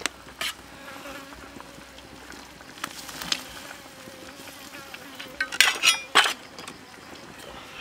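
Steady buzzing of flies or other insects, with sharp clinks and knocks of a cleaver and chopped vegetables against a steel wok of simmering snake soup, loudest in a cluster about two-thirds of the way through.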